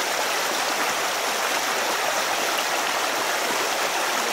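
Shallow stream water rushing and splashing over smooth rock slabs: a steady rush of running water.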